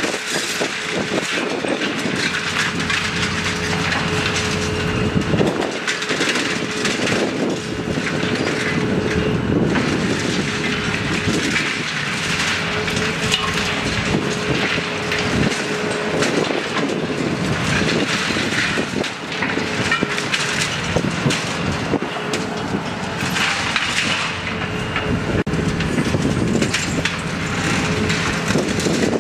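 Terex demolition excavator running hard with a steady hum, its jaw attachment crunching reinforced concrete, with clattering and crashing of concrete chunks falling onto the rubble pile.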